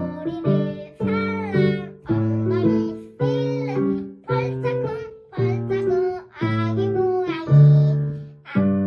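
A young girl singing a Korean children's song in short phrases over instrumental backing, her voice coming in right at the start after a brief pause.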